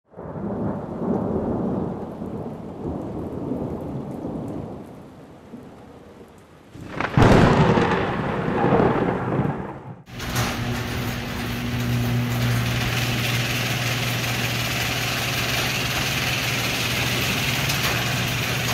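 Thunder rumbling and rolling, then a loud crack of thunder about seven seconds in that rumbles on and is cut off abruptly about three seconds later. After that comes a steady low mechanical hum with hiss.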